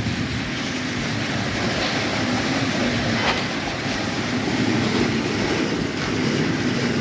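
Steady diesel-powered rumble of a concrete pump truck running while it feeds the slab pour, with a faint low hum and a single faint click about three seconds in.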